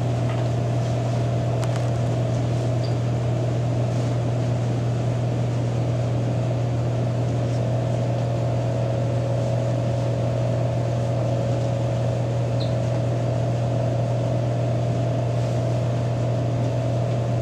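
A steady low electrical hum with a fainter, higher steady tone above it and a couple of faint ticks; no voices.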